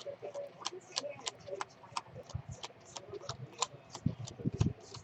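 Trading cards being handled on a table: a scattered run of small crisp clicks and ticks, two or three a second, with a few soft thuds near the end.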